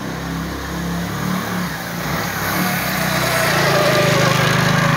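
Small motorcycle engine running as the bike is ridden back and forth over a pile of harvested raya (mustard) stalks to thresh out the seed. It grows louder in the second half.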